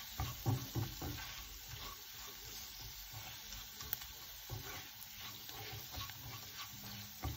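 Silicone spatula stirring and scraping coarsely ground toor dal with onions in a nonstick frying pan, with a light, steady sizzle of oil. The dal is being fried until dry and crumbly.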